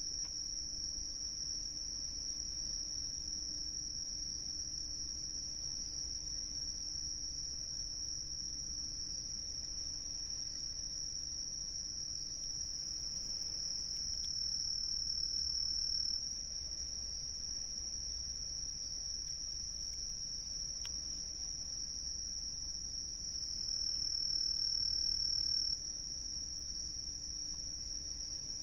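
Crickets chirping in a steady, continuous high-pitched chorus. It swells louder twice for a couple of seconds each, about halfway through and near the end.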